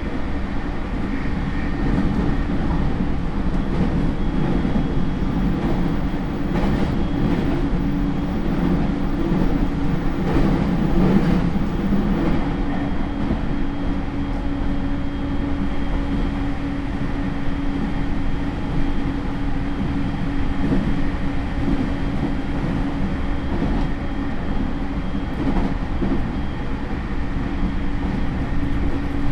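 Running noise of a JR E231 series suburban electric train heard inside motor car MoHa E231-1067, which carries its original Hitachi IGBT inverter: a steady rumble of wheels on rail with a steady traction-motor hum and a few faint high tones that hold their pitch.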